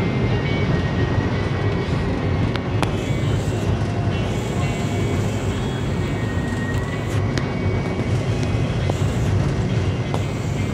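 Steady low rumble of a vehicle in motion: engine and road noise heard from on board, with a few faint clicks and rattles.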